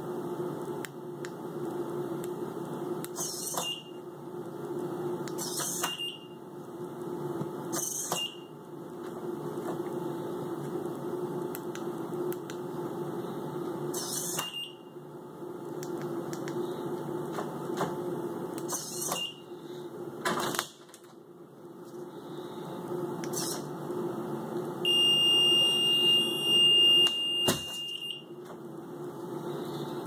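A keyfob-controlled servo deadbolt's piezo buzzer giving about six short chirps that fall in pitch, a few seconds apart, then a steady high beep of about three seconds near the end, over a steady low hum. The beeps signal the remote's commands to the lock.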